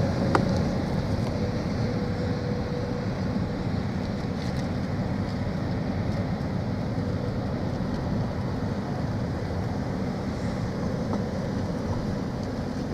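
Steady low engine rumble with some wind noise, and a short click about a third of a second in.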